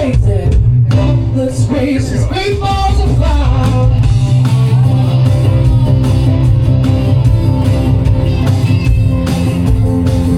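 Live rock and roll band playing, with guitar and a strong bass line; a voice sings over the first few seconds, then the instruments carry on.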